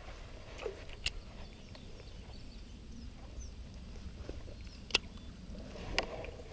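Low rumble of handling noise on a chest-mounted action camera, with a few isolated sharp clicks: one about a second in and two near the end, a second apart.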